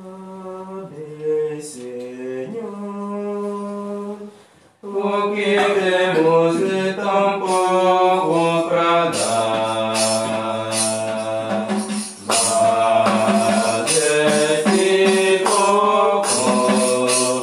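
Hymn for the preparation of the gifts at Mass: quiet held chords at first, then from about five seconds in a louder passage of singing over instrumental accompaniment, moving through changing chords.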